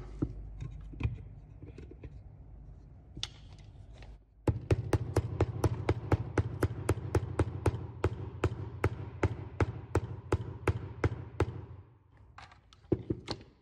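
Small hammer tapping a brushless motor stator down into the Makita DHS680's plastic motor housing: a run of sharp, evenly spaced taps, about three a second, lasting some seven seconds, with a few single knocks before and after.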